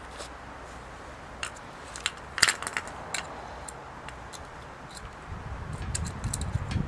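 Small metal clicks and clinks from alternator parts and tools being handled, then a low rattling rumble over the last second and a half.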